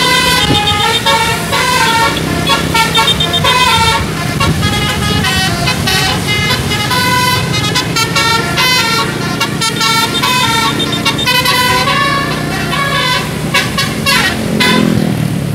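Bus 'telolet' musical air horn playing a quick tune of short notes that step up and down in pitch, over the steady low hum of the bus engine running.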